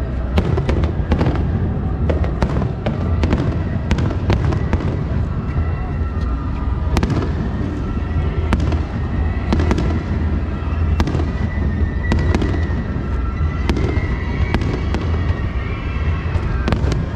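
Aerial fireworks shells bursting in quick succession: many sharp cracks and pops over a continuous low rumble.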